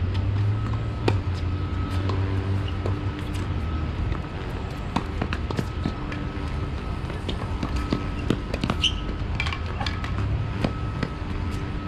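Tennis balls struck by rackets and bouncing on an outdoor hard court: a string of sharp pops at irregular intervals over a steady low hum.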